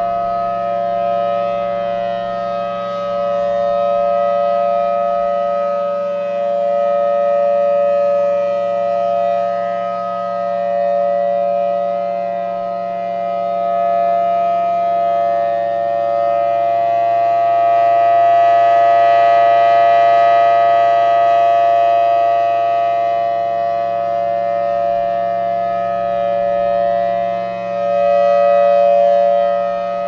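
Outdoor civil-defense tornado siren sounding a steady alert: a chord of several tones held at a constant pitch. Its loudness slowly swells and fades, and it is loudest a little past halfway and again near the end.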